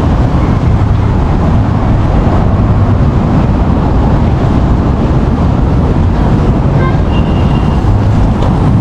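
Loud, steady low rumble of wind buffeting a phone microphone over road traffic noise outdoors, with a faint brief high tone about seven seconds in.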